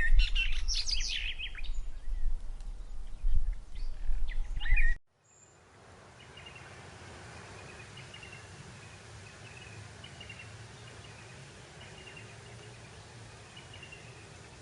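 Wind buffeting the microphone with a low rumble while birds call, loudest in the first second or so; about five seconds in the sound cuts off abruptly. It gives way to a much quieter steady breeze over grassland, with faint short chirps repeating about once a second.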